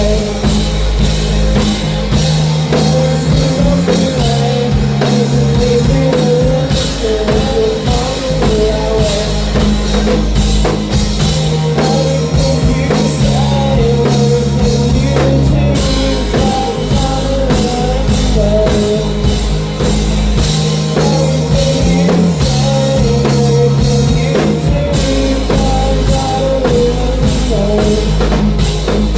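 A rock band playing live and loud: a drum kit keeping a steady beat under guitar and a singing voice, over a low bass line that moves between held notes every second or two.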